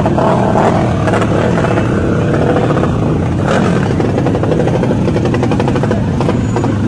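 Modified underbone motorcycle engines running loudly close by, a fast rapid exhaust pulse that never lets up.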